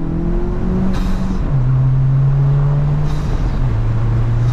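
Turbocharged 1.5-litre four-cylinder of a Honda Civic accelerating through the gears, its pitch rising, then dropping at two gear changes about a second and a half and three and a half seconds in. A short intake hiss comes with each lift-off, from a larger aftermarket turbo inlet pipe and cold air intake that make the intake sound louder.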